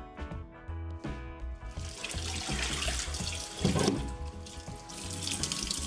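Tap water running into a stainless steel sink while an aluminium, marble-coated nonstick wok pan is scrubbed and rinsed by hand. From about two seconds in the water turns to a fuller splashing as the pan is tipped and emptied into the sink, with the loudest splash a little past the middle. Background music plays underneath.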